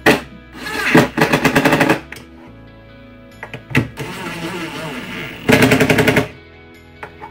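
Cordless impact driver hammering screws through a metal drawer slide rail into a cabinet's side panel: a brief burst at the start, a longer rapid rattle of blows about a second in, and another near the end. Background music plays underneath.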